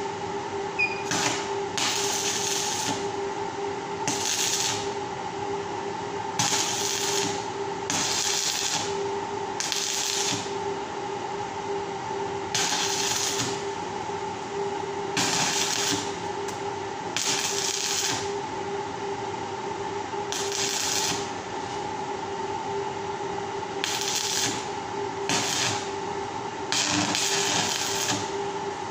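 Arc welding on the steel bars of a round grill grate: about fourteen short crackling welds, each half a second to a second long, roughly one every two seconds, over a steady hum.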